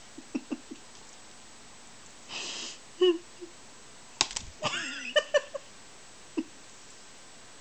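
A cat playing with a feather toy: scattered light taps and a brief rustle, then a sharp smack about four seconds in. Short pitched, voice-like sounds come around three seconds in and again just after the smack.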